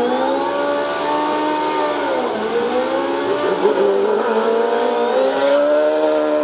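Pro Street drag motorcycle engine revving hard during a burnout, held at high revs with brief dips and climbs, and a thin high whine above the engine note.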